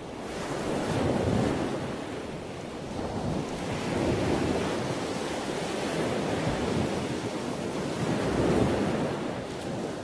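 Ocean surf: a rush of breaking waves that swells and ebbs three times, each wave rising and falling over about three seconds.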